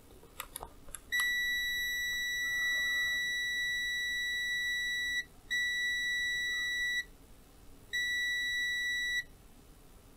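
Kaiweets HT118A multimeter's continuity beeper sounding a steady high beep three times: first for about four seconds, then twice more for about a second and a half each. It cuts in and out as the measured resistance crosses the meter's 30-ohm continuity threshold. A few light clicks come just before the first beep.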